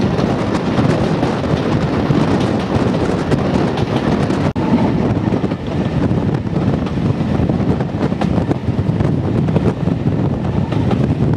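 Wind rushing over the microphone from the window of a moving steam-hauled train, with the train's running noise underneath. The sound drops out for an instant about four and a half seconds in.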